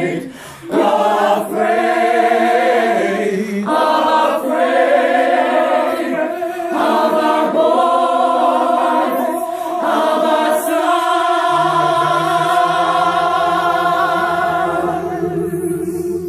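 A small mixed choir of men and women singing together in sustained chords, phrase by phrase with short breaths between. The last chord is held long, with low notes joining it about eleven seconds in.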